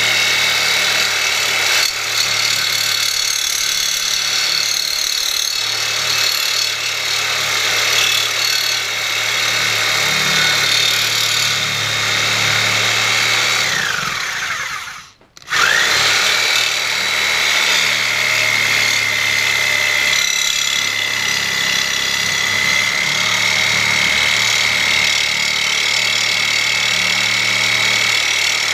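Reciprocating saw with a bimetal blade cutting a cast-iron pulley, its motor running with a steady high whine. About halfway through it winds down and stops for a moment, then starts up again and runs on.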